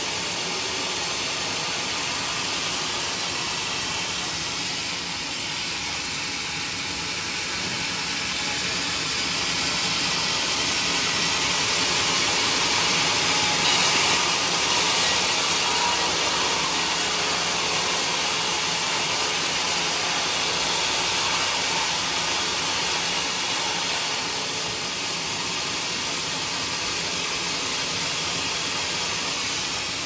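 Vertical band resaw running with its blade cutting lengthwise through a mahogany beam: a steady rushing machine noise, strongest in the treble, swelling a little in the middle of the cut.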